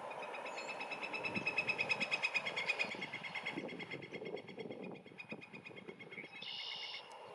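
An animal's long, rapid trill of evenly spaced notes, strongest for the first three seconds and then fading, with a brief higher sound near the end, over a steady low background hum.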